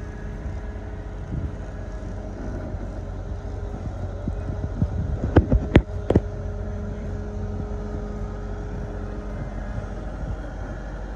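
Cat 308 mini excavator's diesel engine running steadily while it swings a strapped load, with a quick cluster of sharp clanks and knocks about halfway through.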